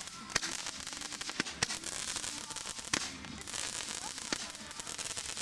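Fireworks going off, a crackling hiss broken by irregular sharp pops of varying strength.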